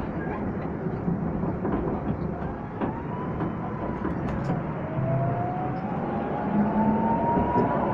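Tatra T3 tram heard from inside while running, with a steady rolling rumble of wheels on rails and a few light clicks. From about halfway, a thin whine rises steadily in pitch as the tram picks up speed.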